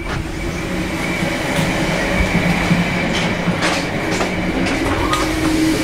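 A train running on the rails: steady running noise with a thin, high wheel squeal and a few sharp clicks.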